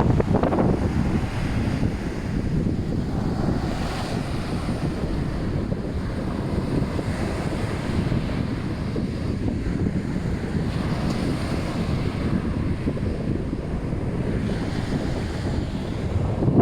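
Steady wind buffeting the microphone, mixed with the wash of the Red Sea's waves.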